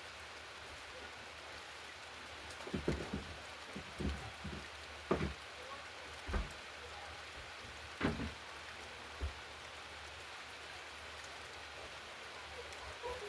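A steady, even hiss of noise, with about half a dozen dull low thumps between three and nine seconds in.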